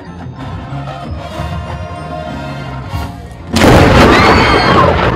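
Marching band music with sustained held chords, then about three and a half seconds in a sudden, very loud crack of thunder from a nearby lightning strike that booms on and slowly fades, with voices crying out through it.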